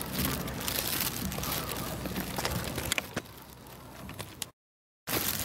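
Footsteps and handheld-camera rustle of someone walking on a wet paved path, with scattered sharp clicks. The sound gets quieter about three seconds in and cuts out for about half a second near the end.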